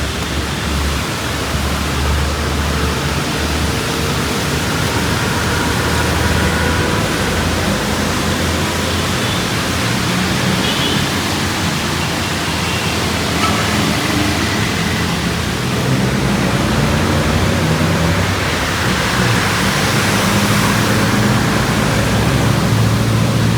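Steady hiss of falling rain mixed with the low rumble of passing road traffic.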